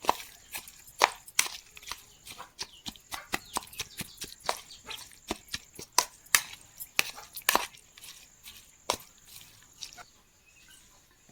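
Knife chopping on a cutting board: sharp, uneven strokes about two or three a second, tapering off and stopping near the end.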